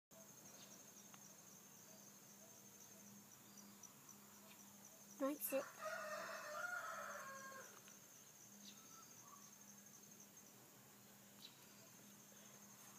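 A faint, steady, high-pitched insect trill runs throughout. About five seconds in there are a few sharp knocks, then a short pitched call of about a second and a half that falls slightly in pitch.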